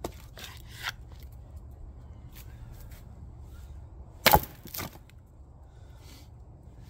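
Council Tools splitting axe coming down on a firewood round on a chopping block and splitting it with one loud sharp crack a little past halfway, followed by a softer knock about half a second later. A few lighter knocks of wood near the start.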